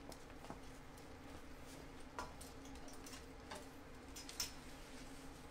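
Quiet room tone with a steady low hum and a few faint, scattered clicks and taps, the sharpest a little past four seconds in.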